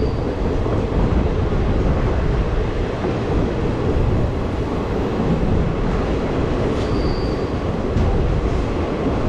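ICF passenger coach running along the track: a steady rumble of wheels on rail, with a brief high wheel squeal about seven seconds in.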